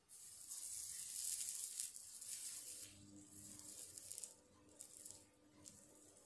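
Soldering iron melting solder onto battery-cell terminals, the flux sizzling and hissing: a long hiss over the first two seconds or so, then several shorter spurts.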